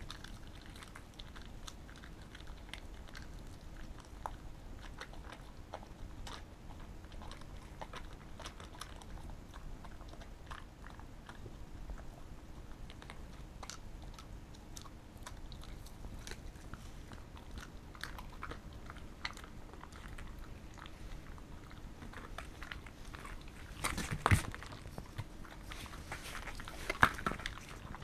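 A Pembroke Welsh corgi chewing and crunching a treat, a steady run of small bites and crunches, louder around 24 seconds in and again near the end.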